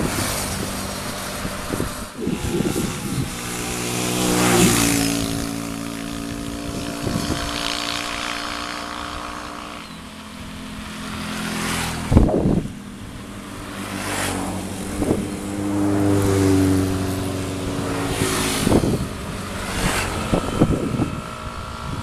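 GreenStar crawler combine harvester's engine running and being revved up and down, with sharp metallic knocks and clanks, the loudest about halfway through.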